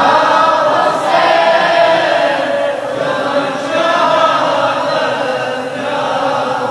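Men's voices chanting a devotional manqabat refrain together, in long drawn-out notes that blend into one another.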